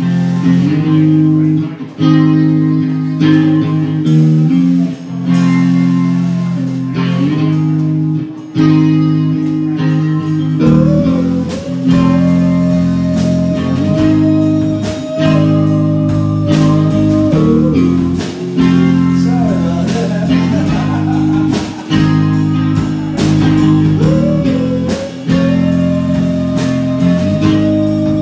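Live rock band playing a slow, bluesy song: amplified electric guitar, bass guitar and drums, with a held melody line, likely the singer's voice, coming in about ten seconds in.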